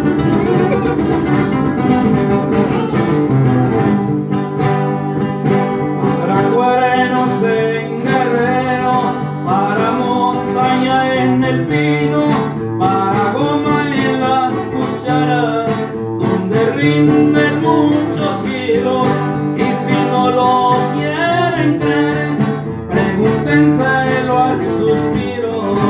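Two acoustic guitars playing a corrido together, a moving melodic line over steady lower chords.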